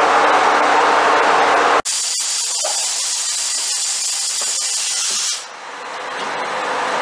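TOS SKIQ 8 CNC vertical turning lathe cutting a round metal workpiece: steady, loud machining noise with a low hum. About two seconds in it changes abruptly to a steady high hiss with faint ticks. About five seconds in the hiss drops away and a low machine hum slowly grows.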